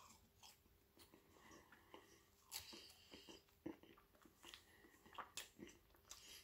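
Faint chewing of a mouthful of thick-cut seasoned chips: a scatter of soft crunches and small mouth clicks.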